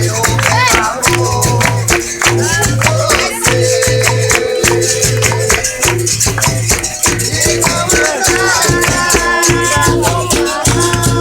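Capoeira roda music: berimbaus struck in a steady rhythm with caxixi rattles, with hand clapping and group singing of call-and-response songs.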